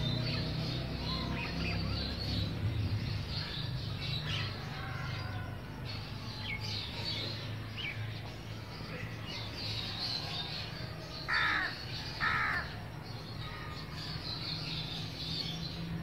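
House crows calling: two loud caws about a second apart, a little past the middle, over scattered faint chirping of small birds and a low steady hum.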